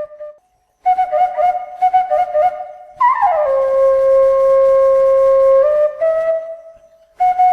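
Instrumental music: a solo melody line with a flute-like tone. It breaks off briefly near the start, runs through quick notes, then slides down into one long held note that steps up and fades near the end.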